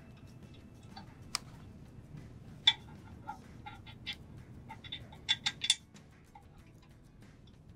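Light metallic clicks and clinks of steel bolts and washers as they are fitted by hand into the mounting bracket of a worm gearbox. The ticks come irregularly: one sharp clink a bit under three seconds in, and a quick run of three a little past the middle.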